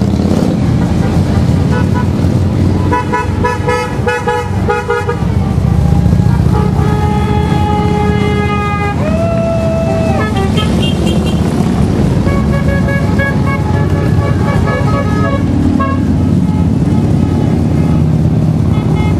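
A line of motorcycles passing with engines running, and horns honking again and again, several overlapping.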